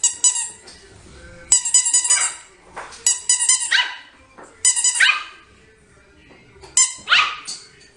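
A dog barking in high-pitched calls, repeated about every second and a half, several ending in a falling note.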